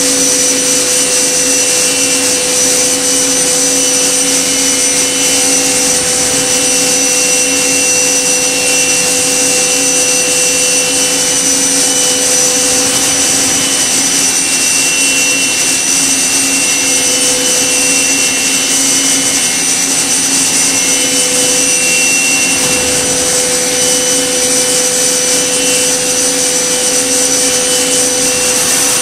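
Okuma MB-5000HII horizontal machining centre with its spindle running at steady speed while a small tool cuts a workpiece. It is a steady, even whine made of several pitches over a constant hiss.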